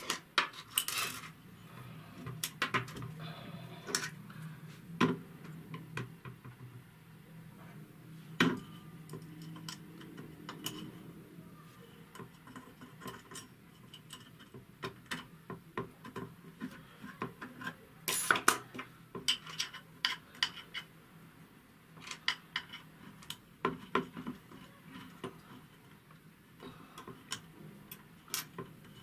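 Small metal parts of an AR-15 lower receiver clicking and scraping as fingers work a spring-loaded front pivot pin and its detent into place. The clicks are irregular, with a sharp one about eight seconds in and a cluster of louder clicks around eighteen seconds.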